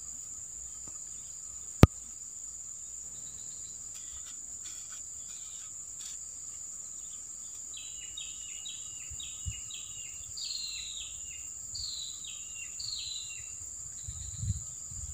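Steady high-pitched insect drone of a swamp, with a bird calling a run of short, falling notes in the second half. A single sharp click about two seconds in.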